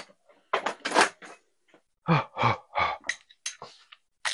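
Irregular clinking and clattering of metal hand tools, about a dozen short knocks and rattles spread over a few seconds.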